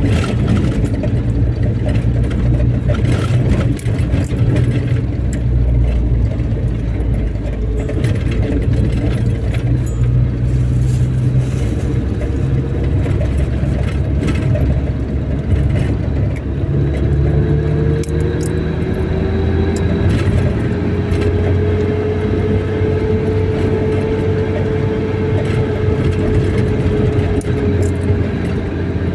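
A car driving: a steady, loud engine and road rumble throughout, with a whine that comes in about two-thirds of the way through and slowly rises in pitch.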